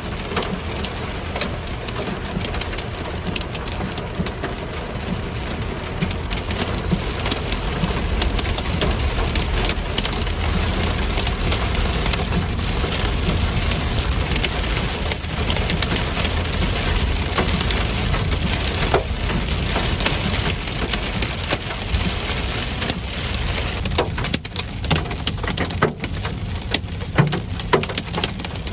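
Ping-pong-ball-size hail and heavy rain pelting down in strong wind gusts: a dense patter of impacts over wind rumbling on the microphone. Sharper single hailstone hits stand out near the end.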